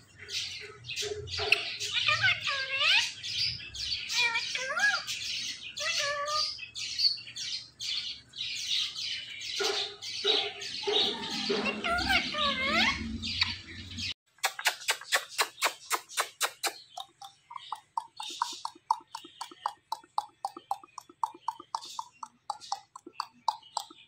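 Rose-ringed parakeets calling: many short squawks and chirps with gliding pitch. About halfway through this stops abruptly and gives way to a fast run of sharp clicks, about five a second.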